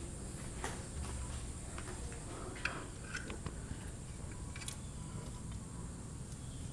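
A few scattered light clicks and taps of hand tools and small fasteners being handled, over a steady low hum.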